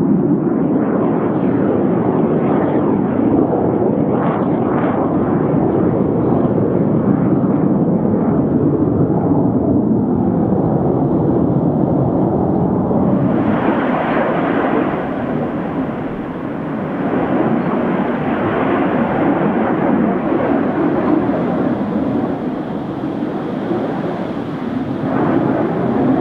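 Steady jet engine noise from a formation of Red Arrows BAE Hawk jet trainers flying past, turning brighter and harsher about halfway through.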